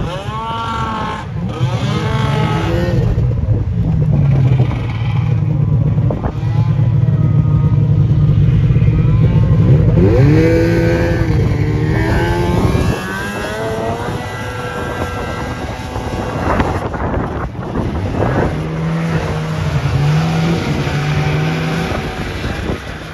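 Snowmobile engine revving hard under load, its pitch climbing and falling several times as the sled accelerates and lets off, loudest about eight to ten seconds in.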